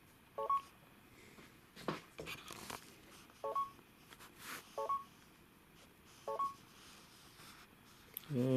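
Four short, identical electronic beeps a second or more apart from the Samsung Galaxy S7's interface inside the Gear VR headset, with brief rustles of the headset being handled in between. Right at the end a man's voice starts a long "oh".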